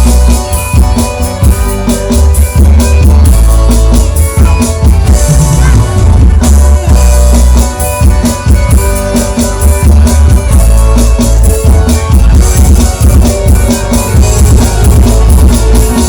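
Loud band music with a steady drum-kit beat, heavy bass and held keyboard-like tones.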